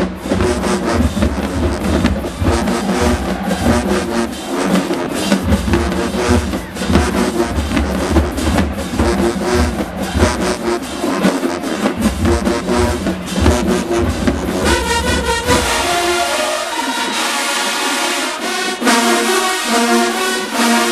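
Marching band playing: the drumline lays down a heavy, repeating bass-drum groove, then the brass section comes in with loud held chords about fifteen seconds in, while the low drums drop away.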